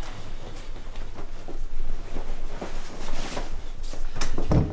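Rustling and light knocking as a person moves about and gathers their things, likely pulling on a jacket, with a heavier thump near the end.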